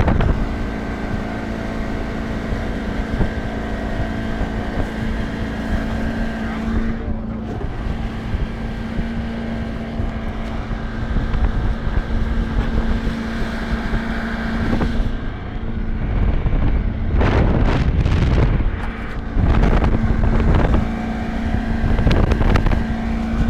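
Outboard motor running at a steady pitch as a boat moves over the water, with wind buffeting the microphone. About two-thirds of the way in, the wind gusts grow louder and more uneven.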